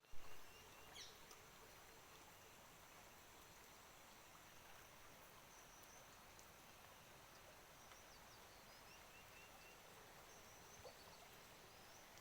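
Faint outdoor ambience: a steady soft hiss with a few scattered high chirps from small birds. A single short knock right at the start.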